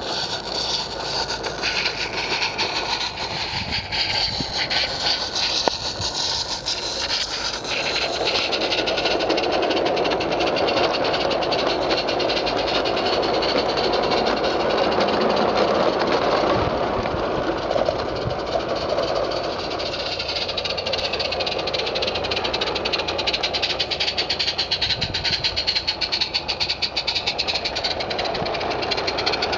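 Small live-steam garden-railway locomotive running with a hissing exhaust, and its long train of vans rolling and rattling over the track close by. It grows louder about eight seconds in as the train draws near.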